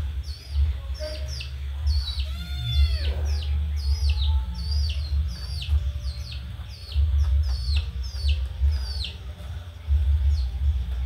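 Young chicks and ducklings peeping: many short, high calls, each falling in pitch, several a second, over a steady low hum.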